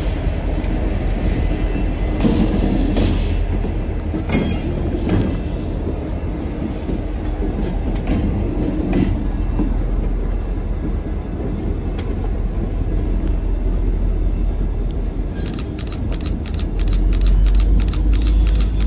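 MBTA diesel locomotives, a GP40MC and F40PH-3Cs, passing slowly at close range with a steady low engine rumble and wheels clicking over the rail joints. A quick run of wheel clicks comes in the last few seconds, with the rumble at its loudest as the last locomotive goes by.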